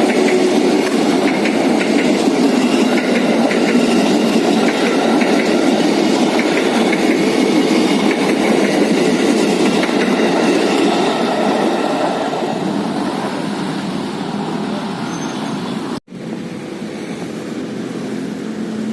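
A passenger train rolling slowly past on the tracks, its wheels giving a steady rumble with some clatter. It fades after about twelve seconds and cuts off abruptly about sixteen seconds in.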